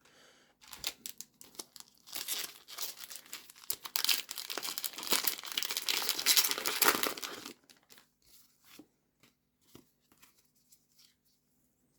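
Foil booster pack wrapper being torn open and crinkled, a dense crackling run that stops abruptly, followed by a few soft clicks of cards being handled.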